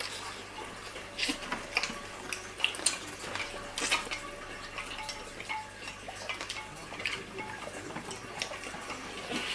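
Scattered light clicks and taps of plates and food being handled at a table during a meal, irregular and spread throughout.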